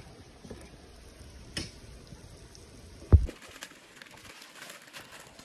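A single sharp, heavy thump about three seconds in, much louder than anything else, with a lighter click about a second and a half in, over a faint steady outdoor background.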